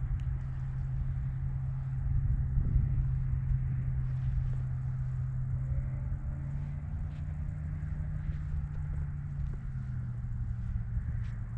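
A small motor hums steadily over a low rumble, its pitch shifting slightly about two-thirds of the way in and again near the end.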